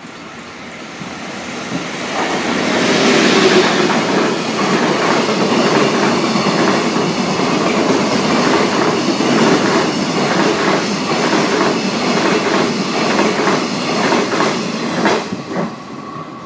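EF81 electric locomotive hauling a container freight train through at speed. A rush builds and is loudest about three seconds in as the locomotive passes, then comes a steady clickety-clack of the wagons' wheels over the rail joints, which ends with a last cluster of clacks near the end as the final wagon goes by.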